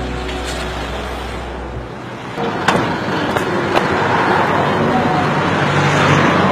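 Roadside traffic noise: a vehicle passing on the road, the rushing noise swelling through the second half, with a few light clicks. A low steady drone cuts off about two seconds in.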